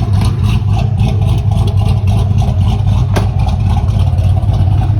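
Chevy car engine running at a steady idle, a loud, deep, rapidly pulsing exhaust rumble, with one sharp click about three seconds in.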